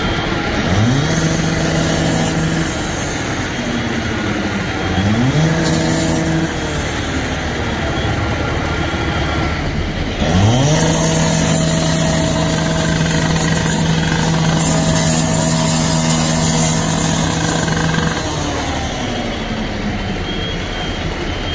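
Two-stroke petrol cut-off saw revving up to cut through a steel garage roller door: two short runs of about two seconds each, then a long run of about eight seconds that winds down near the end.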